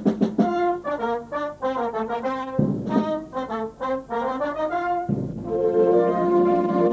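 Wind band playing, with brass to the fore. It opens with quick short repeated notes, moves into running passages of notes over low accented notes, and settles into a held chord about five and a half seconds in.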